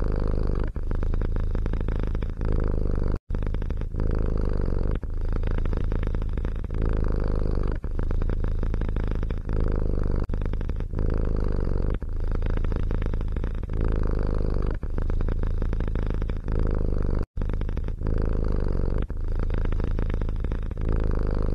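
Domestic cat purring close to the microphone, a steady low rumble in cycles of about a second or so with short breaks between breaths. It cuts out to silence for an instant twice.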